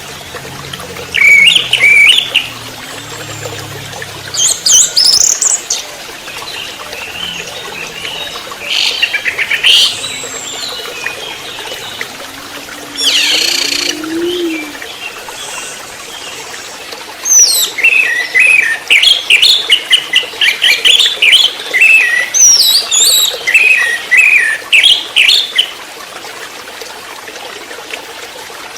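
Orange-headed thrush singing: loud, short, high chirping phrases in the first half, then a long run of rapid repeated notes in the second half, the fast 'trotol' song style. Faint low cooing, like a dove's, sounds underneath in places.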